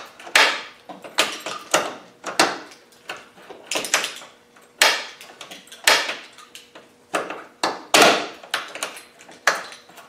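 Land Rover Defender rear door lock and latch being worked over and over, giving a dozen or more sharp mechanical clacks at irregular spacing. The lock is freed up and working again after a squirt of rustproofing lubricant.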